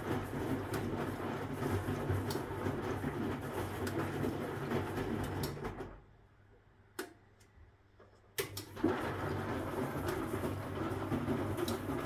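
Huwa Deluxe 65 washing machine in its wash cycle: the Hanning wash motor humming and laundry sloshing in the stainless drum as it turns. About six seconds in the drum stops for two seconds, with a couple of sharp clicks from the left-right reversing contactors, then starts turning again.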